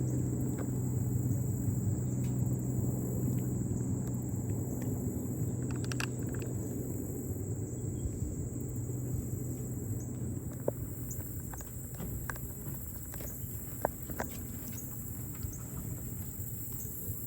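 Outdoor summer ambience: insects chirring in a steady high drone over a steady low hum that slowly fades, with scattered light clicks, likely footsteps on the path.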